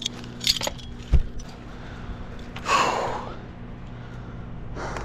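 A climber's hard breathing with the effort of climbing a tree: a long, loud gasping breath about three seconds in. There is also a short hiss about half a second in and a sharp thump about a second in, over a faint steady low hum.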